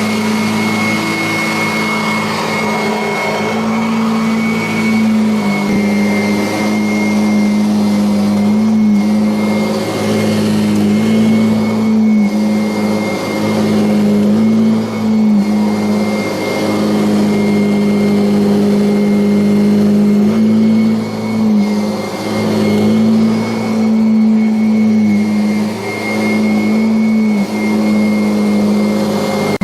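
Kirby Avalir upright vacuum cleaner running on carpet: a steady motor hum with a thin high whine. The pitch sags briefly every second or two as the machine is worked back and forth.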